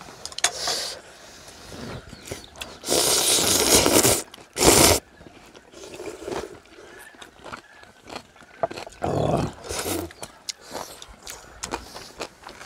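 Ramen noodles being slurped: a long, loud slurp about three seconds in, a short one just after, and another near ten seconds, with small clicks and quieter eating sounds between.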